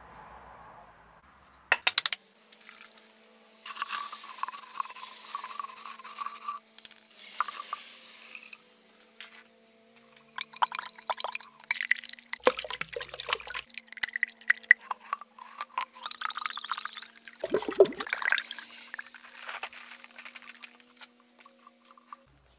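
Wet scrubbing and sloshing inside a hollow cow horn as it is cleaned out by hand, with water swilled round and poured out of it. There are a couple of sharp knocks on the steel block about two seconds in, and the scrubbing comes in irregular spells.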